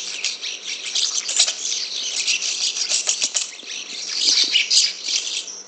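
Asian pied starling singing a fast, unbroken chatter of many short high notes, which stops near the end.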